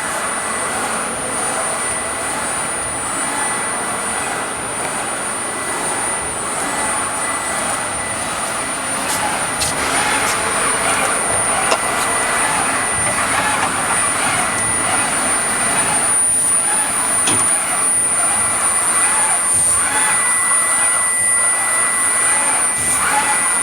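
4-axis CNC router running while cutting EPS foam: a steady, loud machine noise with a high, thin whine from the spindle held at one pitch. It grows a little louder about ten seconds in, with a few short clicks.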